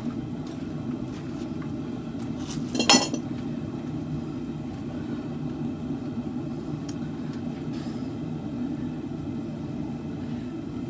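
A single sharp metallic clink of metal striking metal, ringing briefly, about three seconds in, over a steady low hum.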